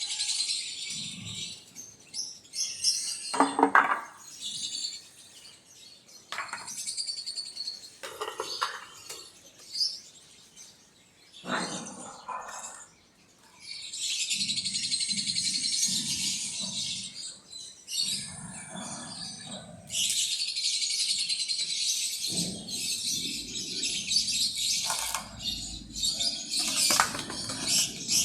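Birds chirping in dense stretches lasting a few seconds each, broken by short pauses, with scattered knocks and rustling underneath.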